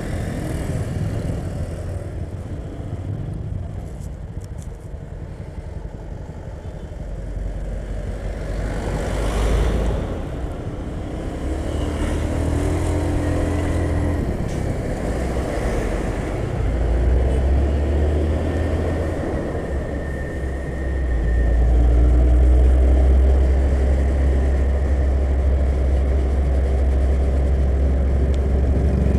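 Slow, jammed road traffic heard from among the vehicles: a low engine drone with road and wind noise, from motorbikes and heavy trucks running close by. The hum shifts pitch a few times and gets louder about two-thirds of the way through.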